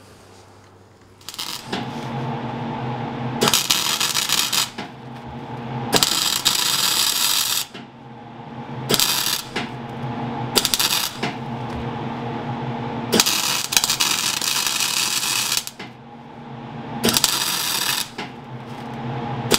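Wire-feed welding arc crackling and spattering in about eight runs of half a second to two and a half seconds, with the welder's steady hum underneath and between them. The heavy spatter comes from welding onto cast steel full of impurities, as the welder describes it.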